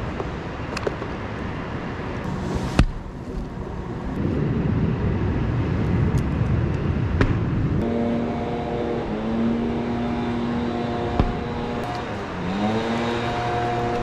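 A few sharp knocks and rough rustling as sawn rounds of fir trunk are pushed off the top of the tree. About halfway through, an engine below starts running steadily, and near the end its pitch dips and rises back.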